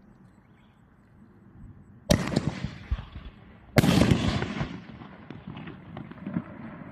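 Winda Fireworks P8047 Black Site Armaments firing: two loud bursts about a second and a half apart, the second the loudest. Each is followed by a rapid crackle that fades over a second or two, with a few scattered pops after.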